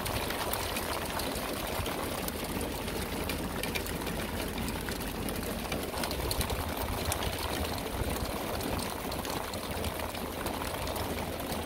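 Hail and rain falling hard, a dense, steady patter of many small clicks over a constant hiss.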